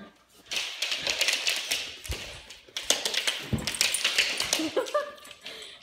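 A chocolate Labrador's claws clicking and scrabbling on a hardwood floor: two long runs of rapid taps as the dog hurries about.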